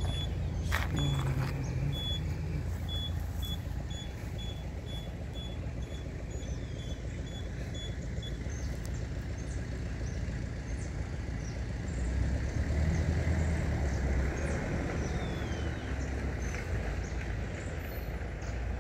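Street traffic noise with an electronic beep repeating about twice a second, which stops about eight seconds in; a vehicle passes, louder, around twelve to fourteen seconds in, and small birds chirp faintly.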